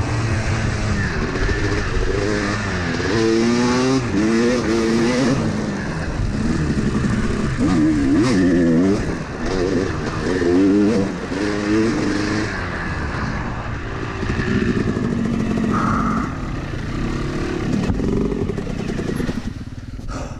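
Yamaha dirt bike engine ridden hard, its pitch climbing and dropping again and again as the rider revs through the gears and rolls off, with wind noise over the helmet microphone.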